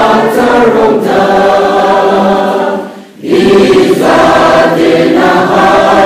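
A church congregation singing a hymn together, many men's and women's voices at once. The singing breaks off briefly about halfway for a breath between lines, then goes on.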